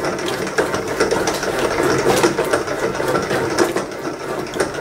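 Electric stand mixer kneading a stiff yeast dough with a dough hook as oil is worked in, the dough still lumpy. A steady motor whir with irregular knocks.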